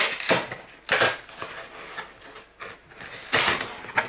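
A cardboard box being pulled open and handled by hand: short scraping, rustling bursts of cardboard, one near the start, a louder one about a second in, and another after three seconds.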